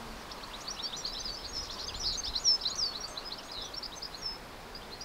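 Small birds chirping in quick, overlapping high calls, with faint outdoor background noise.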